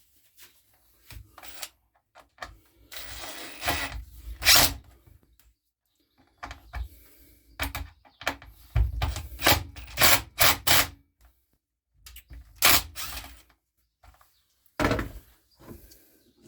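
Irregular knocks, clicks and short scrapes as parts of a Makita EM2600 petrol strimmer are handled and fitted back together by hand, with a longer scrape about three seconds in and a quick run of knocks around the middle.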